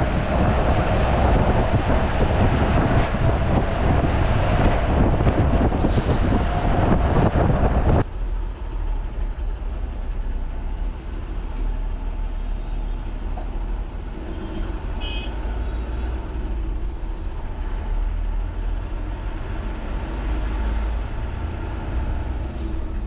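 Wind and road noise rush past the open window of a moving bus for about eight seconds. Then it cuts suddenly to the quieter low rumble of the bus's engine, heard from inside the driver's cab as the bus drives on.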